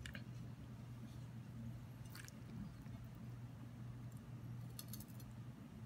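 Knife and fork slicing through a cooked tomahawk steak on a plate, with a few short clicks of the cutlery against the plate, over a low steady hum.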